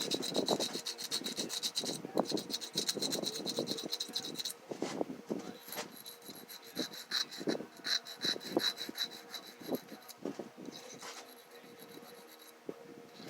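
A homemade lock pick being honed by hand on a wet sharpening stone: repeated short rubbing strokes of metal against stone, growing quieter near the end.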